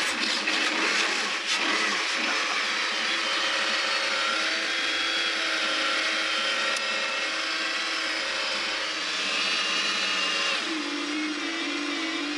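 Mercedes-Benz CLK GTR Roadster's 6.9-litre V12 catching and running at a high, steady idle with a whirring mechanical whine; about ten seconds in the idle drops to a lower, steadier note.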